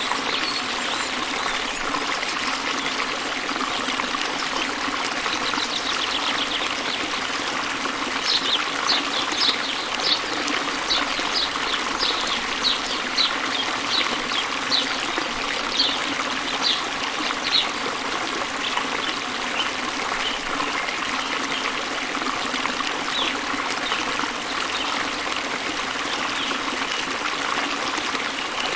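Waterfall water rushing and splashing steadily. A bird calls over it, giving a run of short, high, falling notes at about two a second through the middle stretch.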